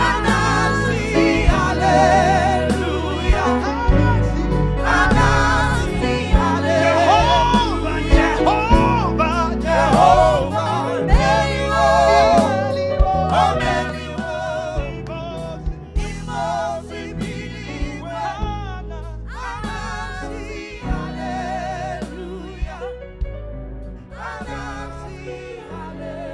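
Gospel praise singing with a live band: sung melody with vibrato over bass and drums, getting quieter over the last ten seconds or so.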